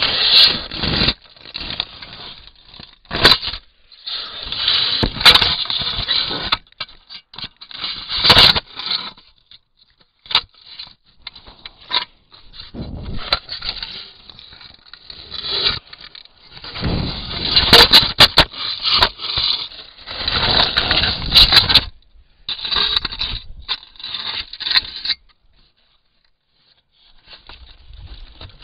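An African elephant's skin and trunk rubbing and scraping against a Bushnell Trophy Cam trail camera, right on the camera's microphone: irregular bursts of rough scraping and knocking with short pauses. It goes almost quiet for a few seconds near the end.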